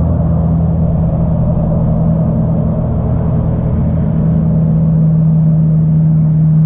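A loud, steady low motor hum.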